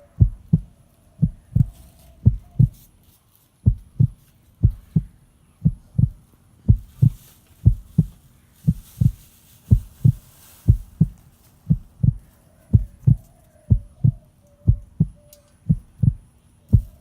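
Steady low thumping, about two thumps a second falling into pairs like a heartbeat, from an underwater sound-effect track. There is a brief break about three seconds in.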